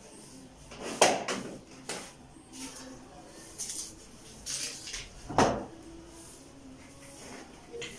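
A long-handled broom sweeping a tiled floor: scattered bristle swishes, with two sharp knocks, one about a second in and one a little past five seconds.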